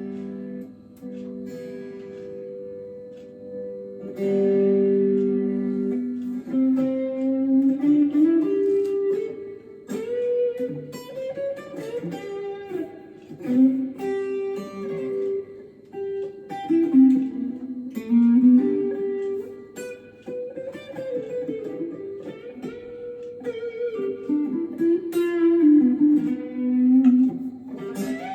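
Gear4Music LA Select Strat-style electric guitar being played through an amp: a few held chords, then a melodic run of single notes with pitch slides and bends.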